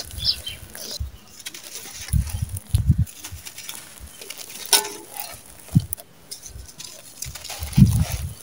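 Dry, gritty red sand-cement chunks being crushed and crumbled by hand: irregular crunching and crackling as grit and dust trickle down, with a few heavier thuds about two to three seconds in and again near the end.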